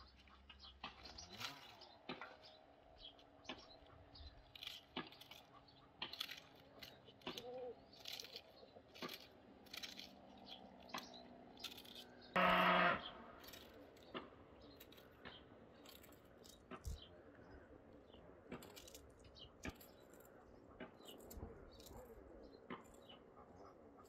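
Knife cutting through a raw cabbage head, short crisp cuts at irregular intervals, one or two a second. A louder sound lasting about half a second cuts in a little past halfway.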